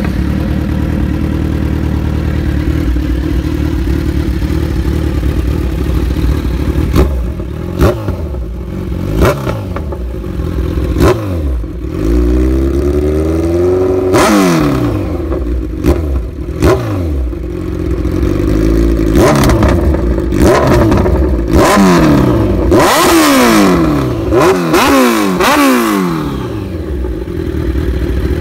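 2015 Kawasaki Z1000's inline-four engine breathing through a full SC Project CRT exhaust with no catalytic converter, idling at first and then revved in a long series of quick throttle blips, each rising sharply and dropping back to idle. About twelve seconds in the revs are held up briefly, and the blips come faster in the second half.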